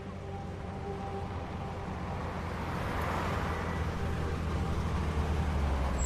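Diesel engine of a refrigerated box truck running as the truck drives up and slows: a low, steady rumble that grows gradually louder.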